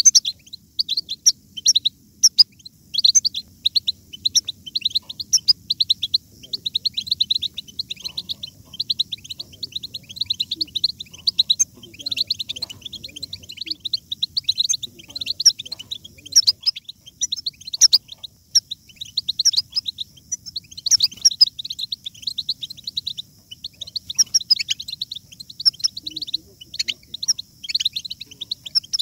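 European goldfinches twittering and singing: a fast, unbroken stream of short high chirps and trills.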